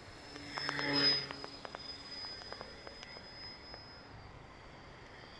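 Small electric motor and propeller of a radio-controlled annular-wing model plane whining as it flies past close by. It swells to its loudest about a second in, then fades as the plane moves away, its high steady whine dying out near the end.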